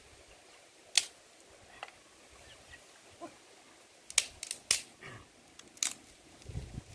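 Dry firewood sticks knocking and clacking together as they are laid on a bonfire pile: a handful of sharp, separate clicks, the loudest about a second in and a quick cluster of three around four to five seconds in.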